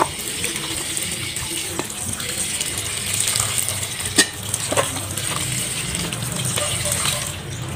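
Tap water running onto raw shrimp in a stainless steel colander as hands rub and rinse them, a steady hiss. A few light knocks against the metal bowl come about four to five seconds in.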